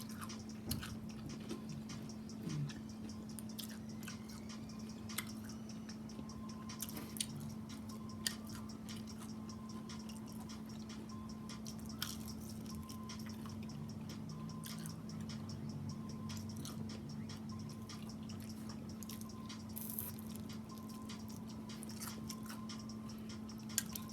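Close-miked eating: someone chewing fried chicken in a sticky honey wing sauce, with scattered wet mouth clicks and smacks, over a steady low hum.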